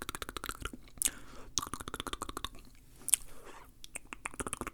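Fast, wet mouth sounds close to the microphone: rapid tongue clicks, lip smacks and saliva pops in quick runs, with a sharper snap about a second in and again about three seconds in.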